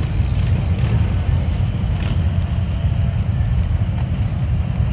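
Steady low rumble of a large group of Harley-Davidson V-twin motorcycles running together.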